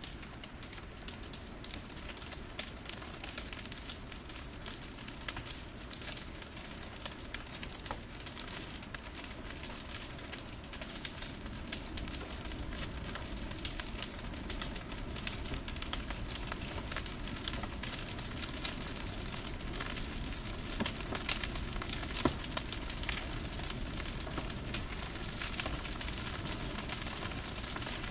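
Fire crackling and hissing, with many sharp pops and snaps over a steady hiss, slowly getting louder as the fire builds.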